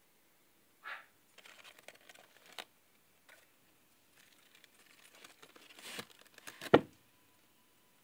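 Paper towels crinkling and rustling as they are handled, with a single sharp knock near the end.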